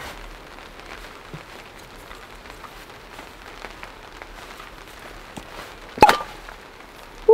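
A corkscrew working a cork out of a wine bottle: small faint creaks and ticks as it is turned and levered, then one sharp pop as the cork comes free about six seconds in.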